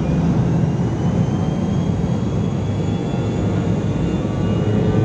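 Steady cabin hum of a McDonnell Douglas MD-83 airliner taxiing, its rear-mounted Pratt & Whitney JT8D turbofans running at low power, with a faint high whine above the low drone.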